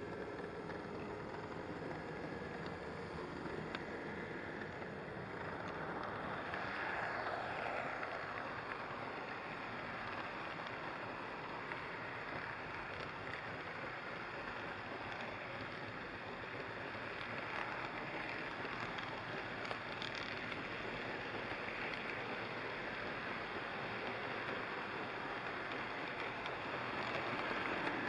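HO scale model train rolling along the track, picked up by a camera riding on the train: a steady rolling noise of wheels on rails and the small motor, getting a little louder near the end.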